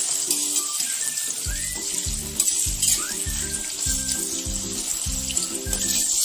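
Tofu sizzling as it fries in hot oil in a wok, a steady crackling hiss. Background music with a pulsing beat comes in about a second and a half in. A metal spatula clacks against the wok twice near the middle.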